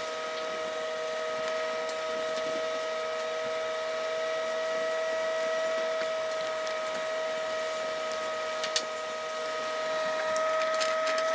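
Panasonic 1200-watt inverter microwave oven running, a steady even hum with a faint tick about three-quarters of the way through.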